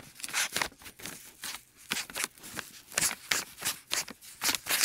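Pen scratching across lined notebook paper in quick, irregular strokes while writing a Chinese character.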